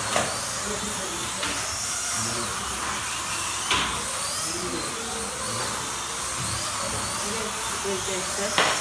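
Slot cars racing: small electric motors whining over a steady hiss, the whine rising and falling in pitch as the cars speed up and slow down. Three sharp clacks cut through, one at the start, one a little over a third of the way in and one near the end.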